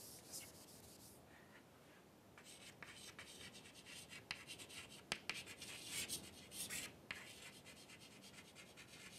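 Chalk scratching on a chalkboard as words are written: faint, quick, irregular strokes starting about two seconds in.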